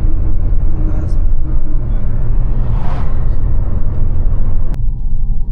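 Steady low road and engine rumble inside a moving car's cabin, with a swell of rushing noise peaking about three seconds in. The higher noise cuts off suddenly near the end, leaving the low rumble.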